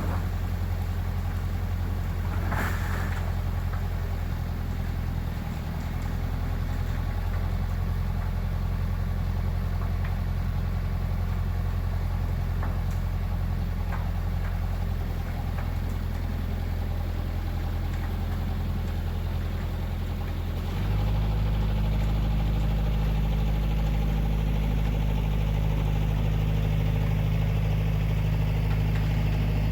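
Diesel excavator engine running steadily. About two-thirds of the way through, its pitch steps up and it gets louder, as the throttle is raised. A single brief clunk comes near the start.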